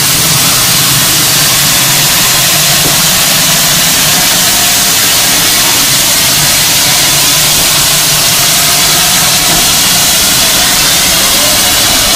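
Steam locomotive venting steam with a loud, steady hiss that barely changes throughout.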